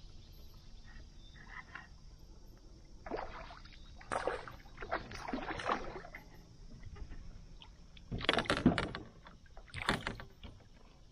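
Hooked smallmouth bass splashing at the water's surface beside a kayak as it is brought in, in several short bursts with the loudest about eight seconds in.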